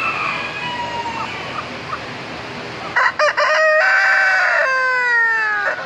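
Rooster crowing once, starting about three seconds in: a few short broken notes, then a long drawn-out note that falls slightly in pitch and cuts off sharply. Before it there is only steady background noise with a few faint calls.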